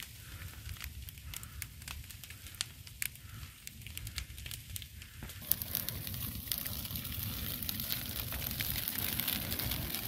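Wildfire burning through brush and trees, crackling with many sharp pops, louder and denser from about halfway through.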